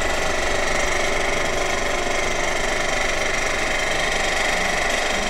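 Rubber band production machinery running steadily, a loud, dense and fast mechanical rattle.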